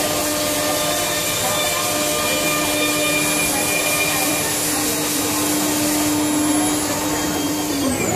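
5-axis CNC milling spindle running steadily as it cuts, a high whine over a hiss. Just before the end its pitch begins to fall.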